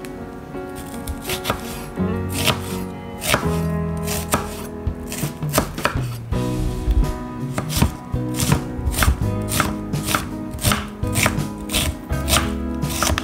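Chef's knife chopping an onion on an end-grain wooden cutting board: the strokes come singly and spaced at first, then settle into a quicker, steady rhythm of about two to three a second from about halfway. Background music plays underneath.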